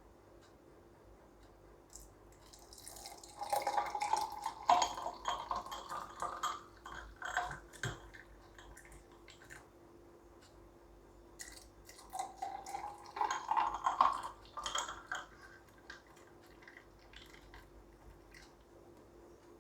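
Grape juice being poured into glasses in two separate pours, splashing and trickling, with a few light clinks of glass. A faint steady hum runs underneath.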